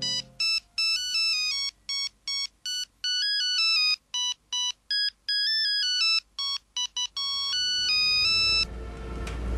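Mobile phone ringtone signalling an incoming call: a quick electronic melody of short beeping notes, repeating, that stops shortly before the end when the call is picked up.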